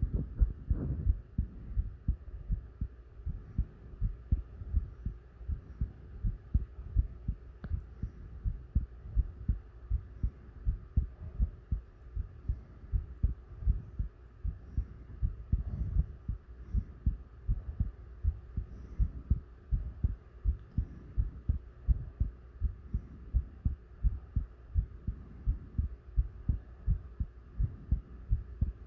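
A person's heartbeat heard close up: a steady, even rhythm of low thumps over a faint hum.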